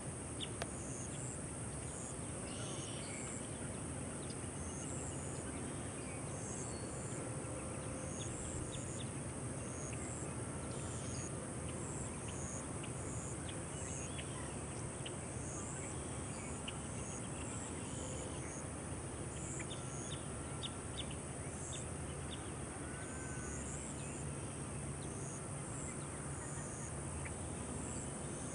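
Wetland ambience: a steady background hiss and low rumble, with short high-pitched insect chirps recurring about once a second.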